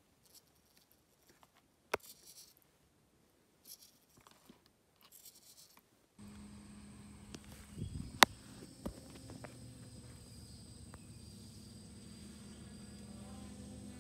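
Multirotor drone in flight: the steady hum of its electric motors and propellers starts about six seconds in, with a loud sharp click a couple of seconds later. Before that, near silence with a few faint clicks.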